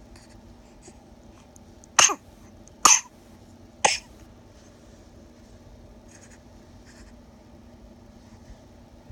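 A baby coughing three short times, about a second apart, in the first half.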